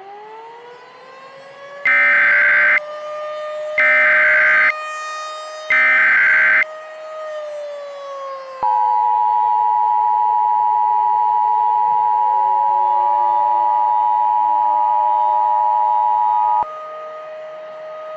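Outdoor warning siren winding up and wailing, with three short screeching EAS header data bursts about a second apart laid over it, then the Emergency Alert System two-tone attention signal held steady for about eight seconds. Together they open a tornado emergency alert.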